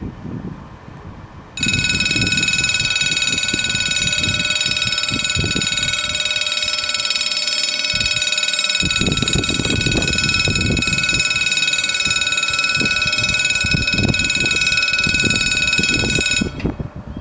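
Level crossing warning bells ringing steadily, warning that a train is approaching. They start about a second and a half in and cut off suddenly near the end, as the barriers come down.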